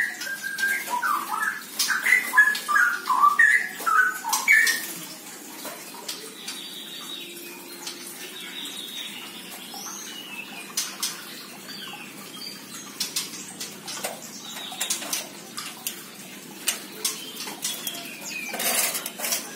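Birds calling in an aviary: a quick run of short chirping calls in the first five seconds, then scattered clicks and faint calls, with a brief rustling burst near the end.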